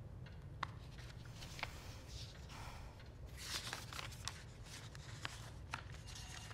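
Quiet room tone with a low hum, a few faint scattered clicks and a brief soft rustle around the middle.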